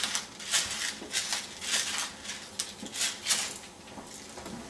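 Pepper being shaken from a spice jar over a pan of tomato sauce: a run of quick rattling shakes, two or three a second, that stops about three and a half seconds in.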